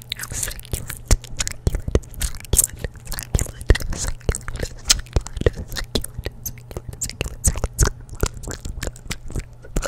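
Gum being chewed right up against a microphone: irregular wet smacks and clicks, several a second.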